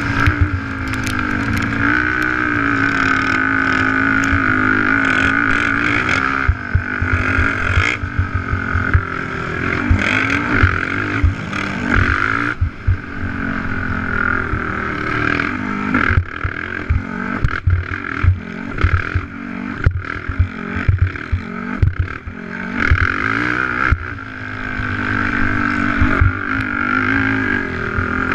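Race quad's engine heard from onboard, held at high revs with its pitch rising and falling as the throttle is worked. Through the middle come many short knocks and thumps as the machine jolts over the rough dirt track, and the engine eases off briefly about twelve seconds in and again about twenty-two seconds in.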